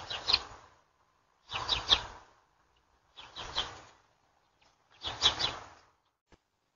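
A bird calling four times, a harsh, scratchy call repeated about every one and a half seconds, with a single short click near the end.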